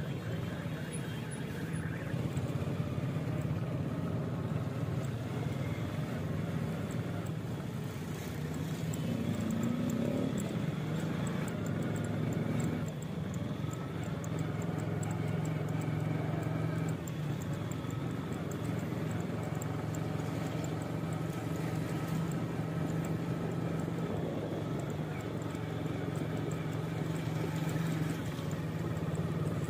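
Town street traffic heard from a moving vehicle: a steady low engine drone with motorcycles and road noise around it.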